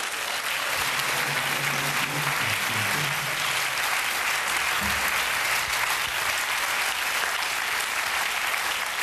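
Studio audience applauding steadily, with a few short low notes faintly underneath in the first half.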